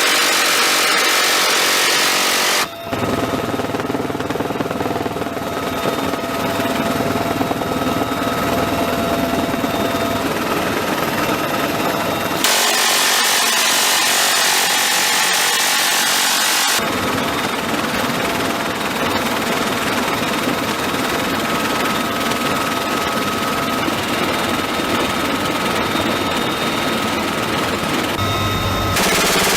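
M134 minigun firing in long continuous bursts, with aircraft engine noise under it. The sound changes abruptly about three seconds in, again around twelve and seventeen seconds, and near the end.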